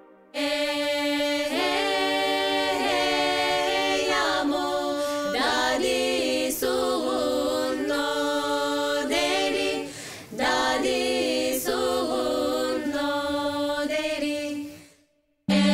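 A small group of women singing a capella, melodic lines gliding over one steady held note sung beneath them. The singing breaks briefly about two-thirds of the way through, then fades out near the end.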